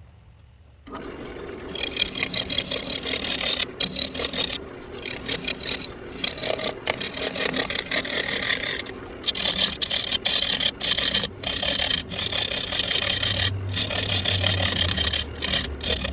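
A turning tool cutting a spinning walnut blank on a wood lathe. The scraping cut starts about a second in and is broken by many short gaps as the tool comes off the wood, over the low hum of the lathe.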